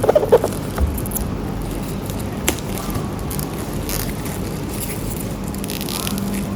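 Cellophane wrap being peeled and crinkled off a cardboard box: scattered crackles, scrapes and clicks, thickest near the end, over a steady background hum.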